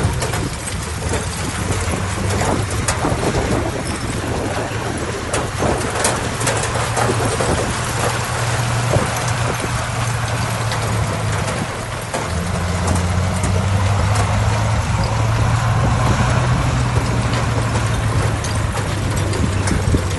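Heavy diesel engine of earthmoving machinery running with a steady low drone, working harder and louder from about twelve seconds in, with scattered clanks and knocks.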